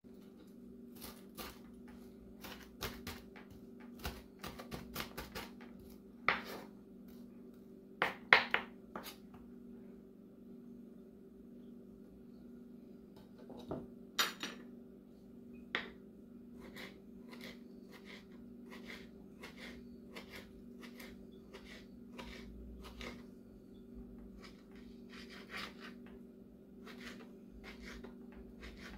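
Kitchen knife chopping tomato and onion on a wooden cutting board: irregular knocks of the blade on the board at first, the loudest pair about eight seconds in, then a steady run of lighter taps about once a second. A faint steady hum lies underneath.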